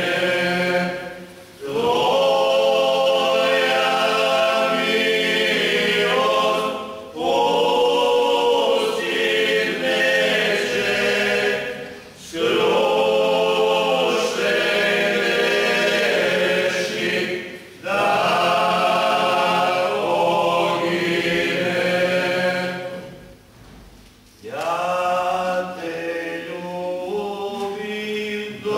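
A group of seven men singing a Lenten church song a cappella in close harmony, in long held phrases of about five seconds each, with a short breath between phrases.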